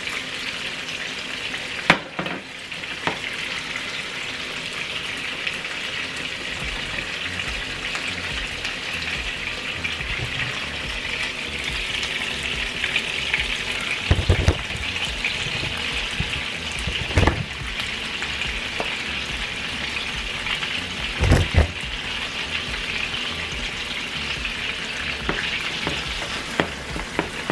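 Meatballs frying in oil in a pan, a steady sizzle, with a few sharp knocks scattered through it.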